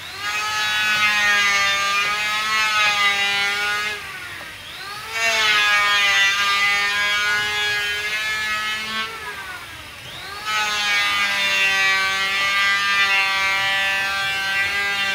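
A loud sustained pitched sound, rich in overtones, in three long held phrases of about four seconds each; the pitch dips and rises again in the short gaps between them.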